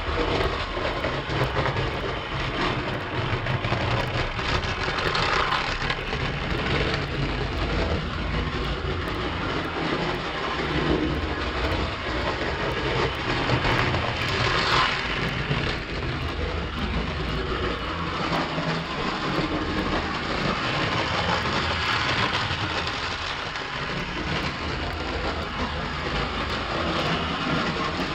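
1930s Walker Fenn clockwork tinplate O gauge locomotive running around tinplate track, a steady mechanical rattle of its wheels and spring-driven mechanism. It grows loudest about halfway through as it passes close by.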